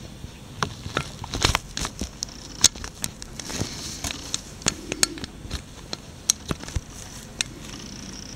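Irregular small clicks and light taps, several close together at times, over low steady background noise.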